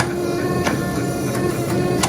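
12-ton forging press running with a steady mechanical hum and sharp clicks about every two-thirds of a second.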